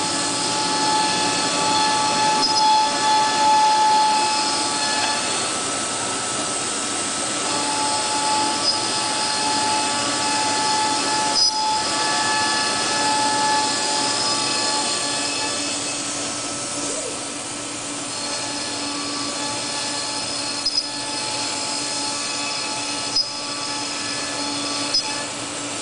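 CNC router spindle cutting wooden parts, a steady high whine over the rushing of the vacuum hold-down pump and dust collector. The whine's pitch drops out and shifts a couple of times as the cut changes, with a few sharp ticks in the second half.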